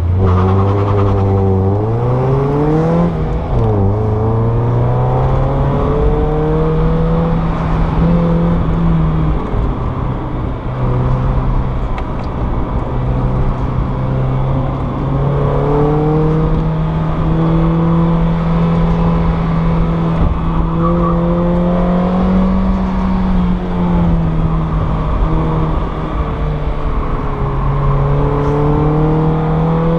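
Mazda Miata NA8's 1.8-litre four-cylinder engine under hard autocross driving, heard from inside the open-top cabin. It revs up hard, falls sharply in pitch with an upshift about three seconds in, then rises and falls with throttle and braking.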